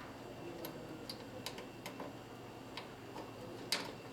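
Faint, irregular light clicks and taps of hands handling small computer parts and plastic cable connectors, with the sharpest click near the end.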